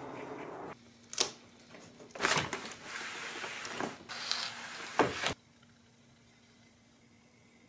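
Handling noise of a handheld camera at a window indoors: three sharp knocks, about a second in, a little past two seconds and about five seconds in, with rustling between them. It cuts off suddenly a little past five seconds, after a shorter stretch of steady background hiss at the start.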